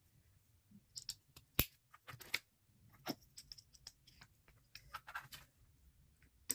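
Plastic Lego pieces being handled and pressed together: scattered clicks and short scraping rustles, with a sharp snap about a second and a half in and another near the end.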